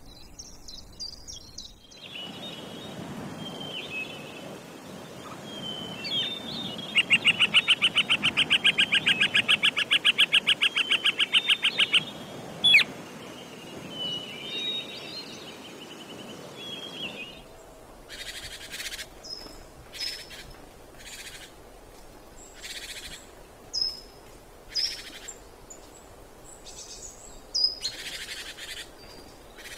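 Birds calling and chirping over a light outdoor background. A loud, rapid trill runs for about five seconds in the first half, and in the second half short high chirps come every second or so.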